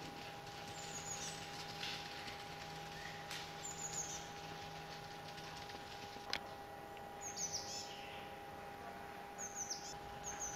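A small wild bird gives short, high, falling chirps, several times in clusters, over a faint steady hum. A single sharp click sounds about six seconds in.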